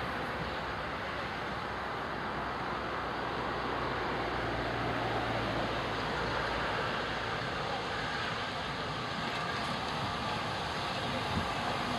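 Steady rumble of a steam tank locomotive and its coaches approaching slowly, mixed with road traffic on the bridge above.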